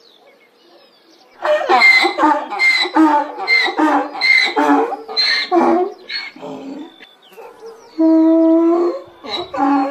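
Donkey braying: a quick run of hee-haw cries, then one long held call about eight seconds in and a last short one near the end.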